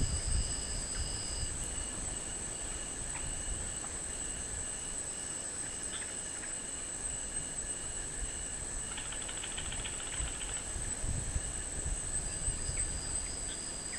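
Night chorus of insects such as crickets: one steady, very high continuous whine, with others calling in rapid pulses at a lower pitch, and a faster rattling trill about nine to ten seconds in. Low rumbling is heard at the start and again about eleven seconds in.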